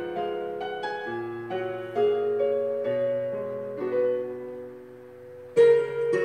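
Slow piano outro of a ballad accompaniment with no singing: single notes and chords struck one after another and left to ring, fading out after about four seconds, then a louder chord about five and a half seconds in.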